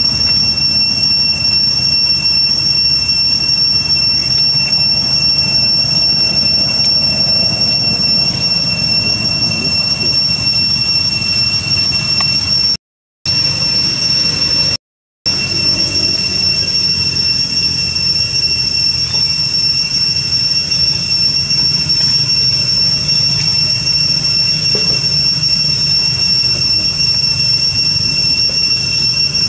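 A cicada chorus: a steady, high-pitched drone over a low rumble. It cuts out twice for a moment near the middle.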